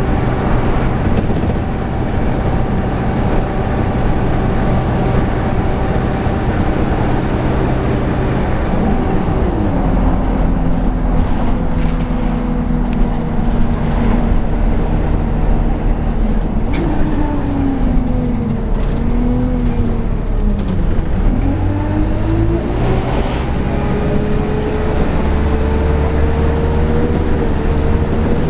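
Optare Cadet single-deck bus heard from a passenger seat while it is on the move: steady engine drone and road rumble, with a whine that falls in pitch about two-thirds of the way through, then climbs steadily as the bus picks up speed.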